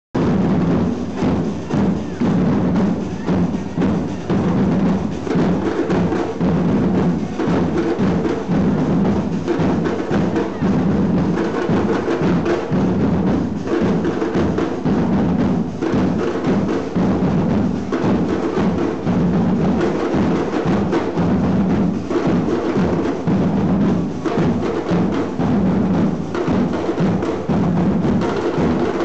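A street percussion band playing together: large bass drums and smaller snare-type drums beaten with sticks in a steady, driving rhythm, with a dense run of strikes.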